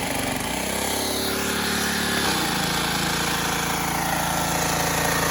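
Troy-Bilt gas pressure washer's small engine running steadily while the spray wand is in use. The engine's pitch lifts about half a second in and drops back about two seconds later.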